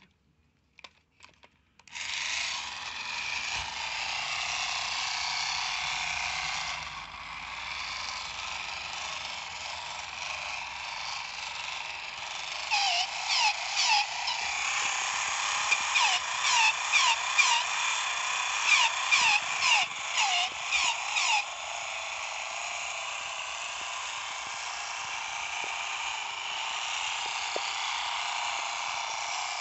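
Battery-powered transparent bootleg Spotbot toy robot running on a wooden floor, its small motor and gears making a steady whir. In the middle there is a run of short falling squeaks, about two a second, from the toy's purely mechanical noisemaker.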